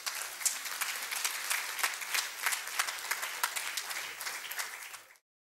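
Audience applauding, a dense run of many hand claps that fades and cuts off abruptly a little after five seconds in.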